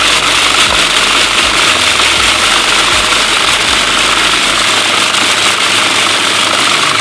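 Food processor running at full speed, grinding raisins into a pulp, with a dense steady whirr that cuts off abruptly at the very end.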